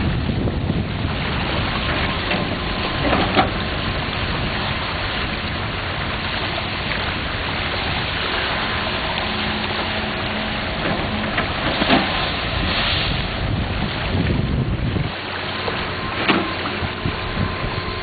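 Heavy, steady rush of lake water pouring out through a freshly opened gravel bar, with wind buffeting the microphone and a few brief knocks.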